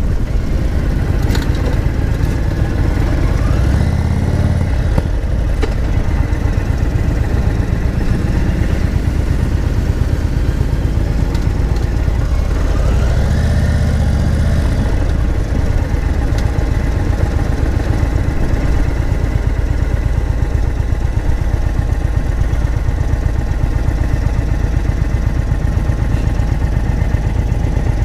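Indian Super Chief Limited's air-cooled V-twin engine running at low speed, picking up briefly about four seconds in and again about thirteen seconds in, otherwise running steadily.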